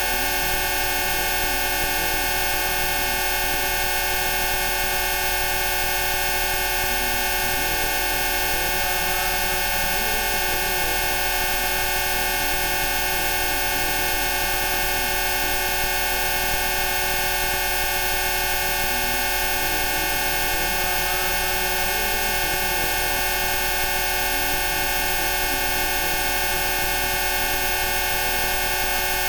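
Synthesized Rife frequency tones: many steady electronic tones sound at once at pitches from low to very high, holding level without a break, with faint wavering tones underneath in the middle range.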